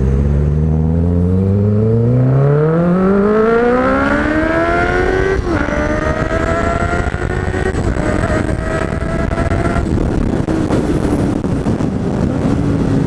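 Honda CB650F inline-four motorcycle engine pulling away from a stop: its pitch climbs steadily for about five seconds, drops at a gear change, holds, then fades as the throttle rolls off about ten seconds in, with wind rushing over the microphone.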